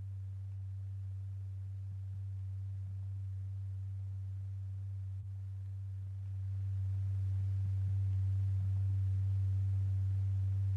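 A steady, low pure tone from a sine-wave generator, the kind used to vibrate a cymatics plate or diaphragm. It steps up in loudness about six seconds in.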